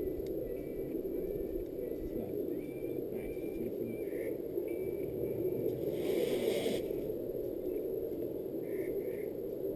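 Steady rushing outdoor background noise with a few faint short high chirps, and a brief hiss about six seconds in.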